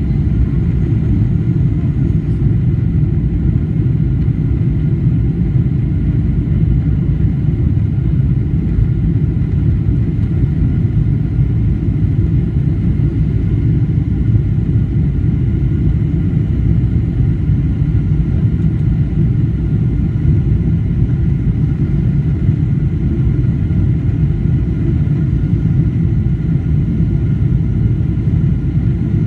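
Steady low cabin rumble of a Boeing 777-300ER climbing out: its GE90-115B engines at climb power and the airflow past the fuselage, with a faint steady high tone above it.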